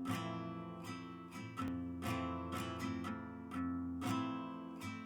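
Recorded song playing: strummed acoustic guitar chords ringing between sung lines, fed from a tube headphone amplifier's output.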